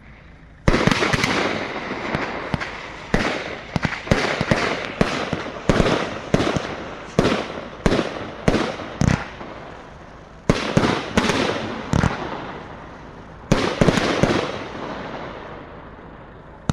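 Pyro Specials 'King of the Sky' consumer firework cake firing a rapid series of about twenty sharp bangs, each trailing off in a fading rush of noise. There are two short lulls, about two-thirds and four-fifths of the way through, and the last shots fade out near the end.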